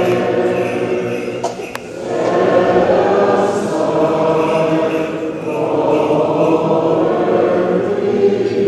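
Many voices singing Byzantine Catholic liturgical chant together, without instruments, in long sustained lines. The singing eases briefly just before two seconds in, then resumes.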